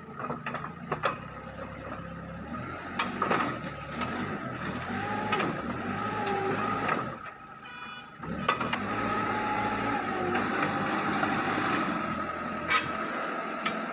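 Excavator's diesel engine running steadily with a constant high whine, easing off briefly about halfway through, with several sharp metallic clanks as steel track links are levered into place.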